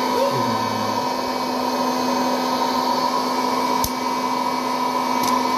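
Electric hot-air popcorn maker running, its fan giving a steady whirring hum as the kernels heat. A single sharp pop comes about four seconds in and a fainter one near the end, as the first kernels begin to pop.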